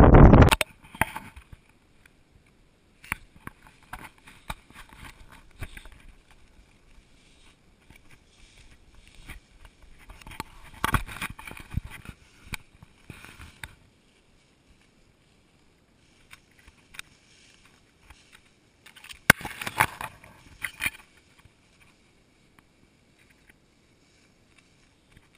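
Tall grass rustling and brushing against the camera in two bursts, with scattered handling knocks and clicks between them. A loud gust of wind on the microphone cuts off about half a second in.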